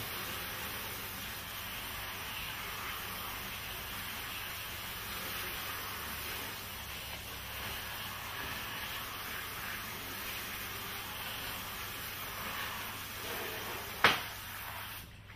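Steady hiss of water from a garden-hose spray nozzle rinsing a plastic hubcap. Near the end comes a single sharp knock, the loudest sound, and the spraying stops about a second later.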